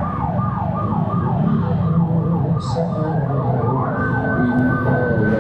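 Electronic siren sounding a fast repeating falling wail, nearly three sweeps a second; near the end a second, steady higher tone joins it. A low engine rumble runs underneath.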